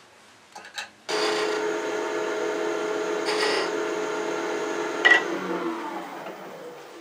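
Wood lathe switched on about a second in and running with a steady whine of several tones, with a short scraping hiss about two seconds later as a light cut is taken on the spinning handle's tenon. A click near five seconds in, then the lathe winds down, its pitch falling as it coasts to a stop.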